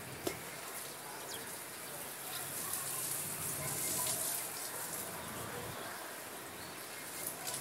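Steady background hiss, strongest high up and a little louder in the middle, with a few faint clicks.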